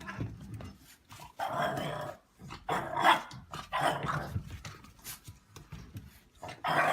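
A dog vocalizing in about four short bursts.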